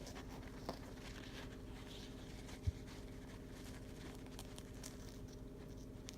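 Faint scattered clicks and crackles of a pet bird picking at and tearing food with its beak, with a single soft thump a little before halfway, over a steady low hum.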